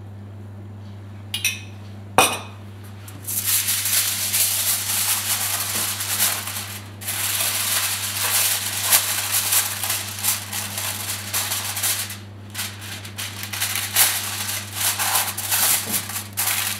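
Aluminium kitchen foil crinkling and rustling as it is pulled off the roll, torn and pressed down over a baking tray, in uneven bursts with a couple of short pauses. Two sharp clinks come before it, near the start.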